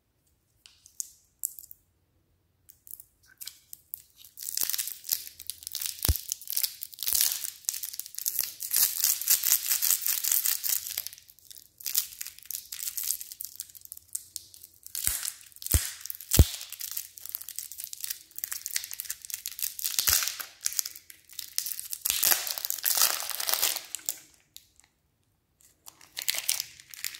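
Clear plastic wrapper crinkling and tearing as it is pulled off a round lollipop, in two long stretches of crackly rustling with a short pause between them and a few sharp clicks.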